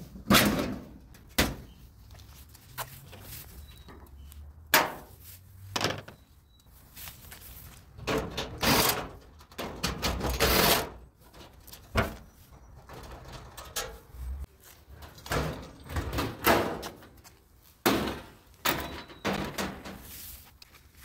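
A clothes dryer cabinet being taken apart by hand: irregular knocks, thumps and scraping as panels are pried loose and moved.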